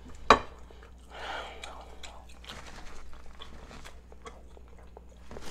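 Hands tearing apart a whole rotisserie chicken: one sharp crack about a third of a second in, then soft tearing and many small wet clicks as the meat and skin come apart.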